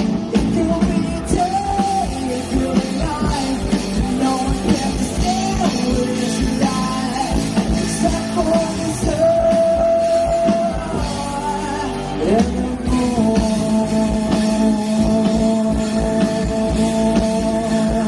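Live rock band playing amplified on stage: drum kit, bass, guitars and keyboards. A lead melody holds long notes and slides up sharply about twelve seconds in.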